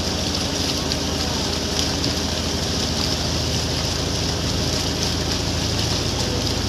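Motorboat engine running steadily under way, over a constant rush of water and wind.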